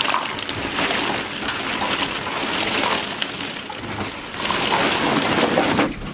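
Hollow plastic ball-pit balls clattering and rustling against each other in a continuous jumble as a capuchin monkey moves about among them.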